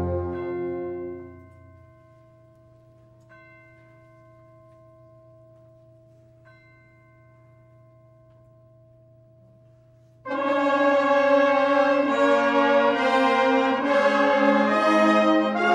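Wind band playing: a loud full chord dies away within the first second or two, leaving a few soft held notes with quiet new entries about every three seconds. About ten seconds in, the full band, brass prominent, comes in suddenly and loudly.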